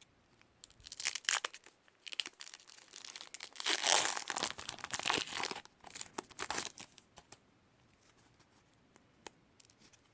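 A baseball card pack wrapper being torn open and crinkled, in a run of crackly rips that is loudest about four seconds in and dies away after about seven seconds.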